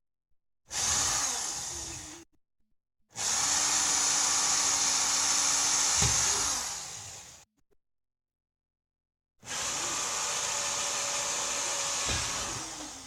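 Power drill cutting drainage holes into a PVC window frame, run three times for a few seconds each, the motor winding down at the end of each run.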